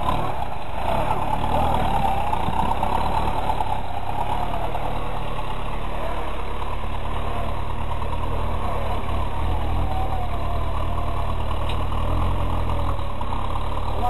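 Toyota off-road trial vehicle's engine running steadily under load as it climbs a steep dirt slope.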